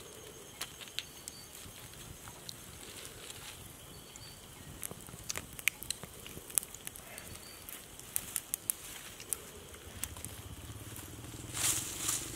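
Campfire of burning wood crackling, with sharp irregular pops and snaps over a faint hiss. A louder rush of noise comes near the end.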